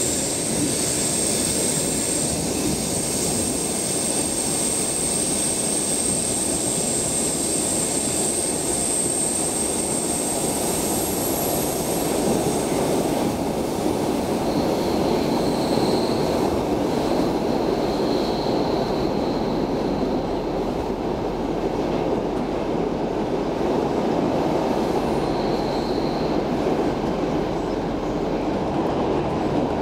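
A Stockholm Metro C6 subway car running through a tunnel, heard from inside the car: a steady loud rumble of wheels on the rails. A high steady whine fades out about twelve seconds in, and a few short, faint high squeals follow later.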